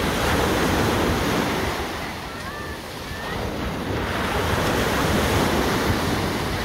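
Small waves breaking and washing up a sandy beach, coming in two swells with a lull between them, and wind rumbling on the microphone.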